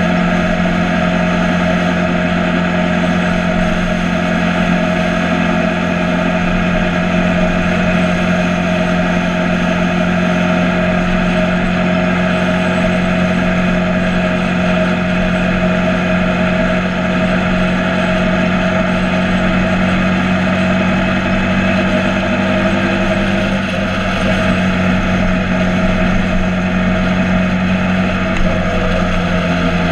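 Motorcycle engine running at a steady cruise: a constant, loud drone that holds nearly the same pitch throughout.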